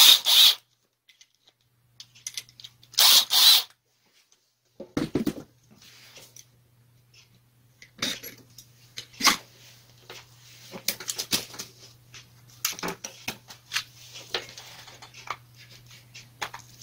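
Clatter of an angle grinder being taken apart by hand: two short scraping rattles in the first few seconds, a knock about five seconds in, then a run of small metal clicks and taps as a screwdriver works on the gear housing screws.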